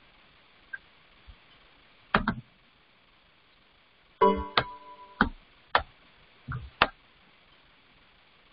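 Quiet room with a few scattered sharp clicks and knocks, and one short, chime-like tone of several steady pitches a little over four seconds in.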